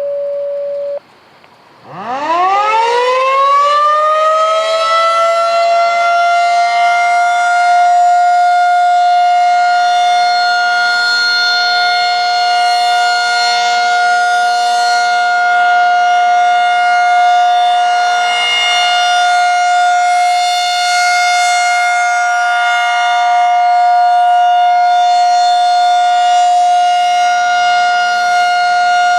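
Federal 2001-SRN rotating electromechanical outdoor warning siren winding up from a low growl to a steady high wail, which it then holds. Its tone brightens and dulls every few seconds as the rotating head sweeps past.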